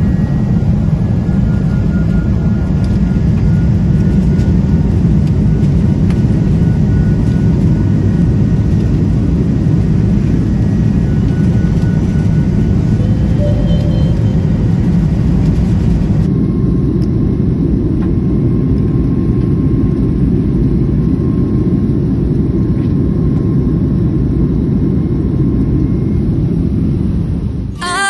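Loud, steady, deep engine and air noise inside a jet airliner's cabin as the plane moves fast along the runway.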